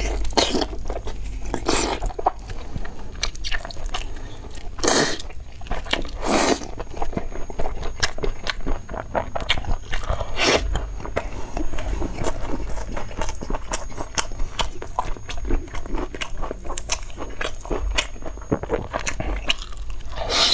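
Close-miked chewing and biting of braised fatty beef: a continuous run of wet mouth smacks and small crunches, with three louder breathy mouth noises in between.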